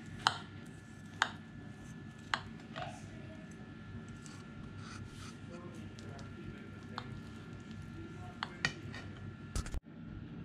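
Large kitchen knife cutting through a soft cheese cake and clicking against the plate beneath: three sharp clicks in the first few seconds and a few more near the end, over a steady background hiss.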